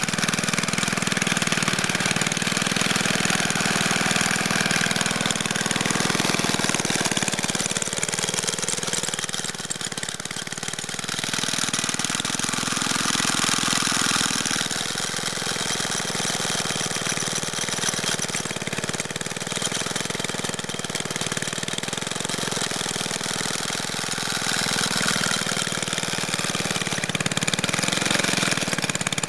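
Old lawn edger's small petrol engine running steadily, unloaded, with its blade not cutting.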